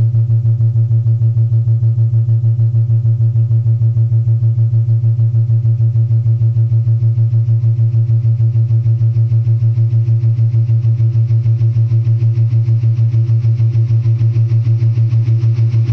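Electronic music: a low synthesizer drone held on one pitch, pulsing quickly and evenly, with faint higher overtones above it.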